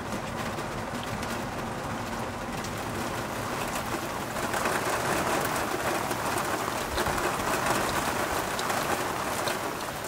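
Heavy rain falling in a windy storm, a steady rushing hiss with a patter of drops, growing louder about four seconds in.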